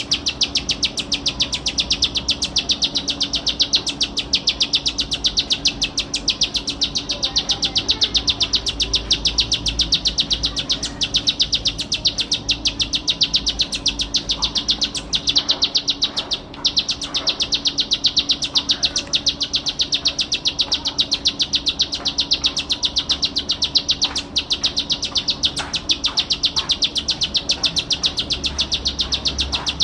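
Ciblek sawah (a field prinia) singing in a rapid, continuous trill of high repeated notes that breaks off briefly about midway.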